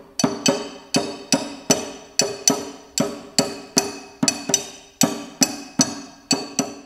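Music of struck percussion: an even run of ringing pitched notes, about three strikes a second, each sharp at the start and fading away.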